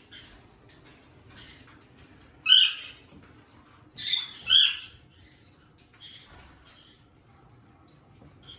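Pet eastern rosellas calling: short, sharp, high calls, a loud one about two and a half seconds in and a loud pair around four seconds in, with fainter short calls between and near the end.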